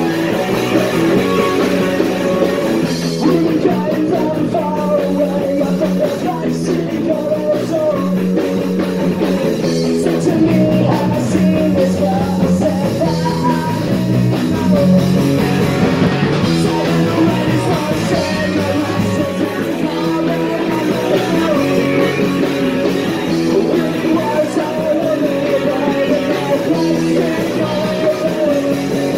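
A punk rock band playing live, with electric guitar, at a loud and even level.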